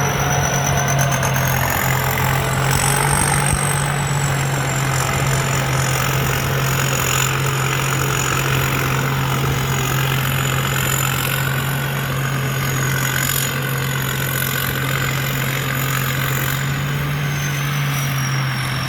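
Somboon Pattana combine harvester's 260 hp engine running steadily, a continuous low hum over mechanical noise, with a thin high whine that drifts slowly up and down in pitch.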